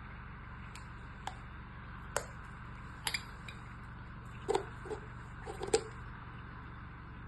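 Scattered light clicks and knocks from objects being handled during an unboxing, about seven in all, the loudest around four and a half and near six seconds in, over a steady low hum.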